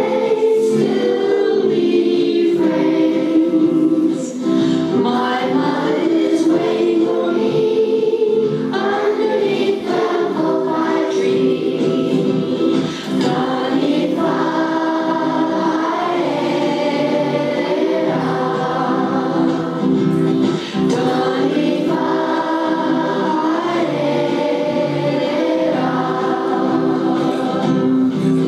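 A hall full of school children singing a song together in unison.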